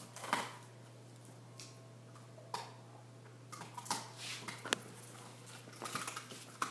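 Dalmatian chewing on a chew stick, with scattered soft clicks, scuffs and rustles as the dogs move about on a dog bed.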